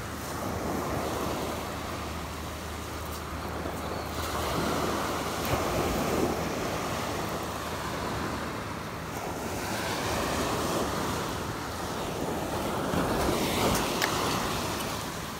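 Small waves breaking and washing up a pebble beach, the surf swelling and easing every few seconds, with wind buffeting the microphone.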